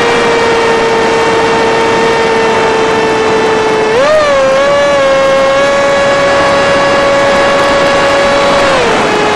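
FPV Skyfun foam RC plane's electric motor and propeller whining steadily in flight, the pitch stepping up as throttle is added about four seconds in and easing down again near the end, over a steady rush of air noise.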